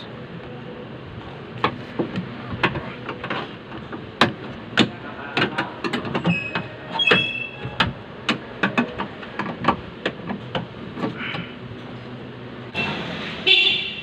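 Metal and plastic parts inside a Suzuki Carry's door shell clicking and knocking irregularly as a hand works the door-handle fittings and clips, a few clicks with a brief metallic ring. Near the end comes a louder scraping rattle, about a second long.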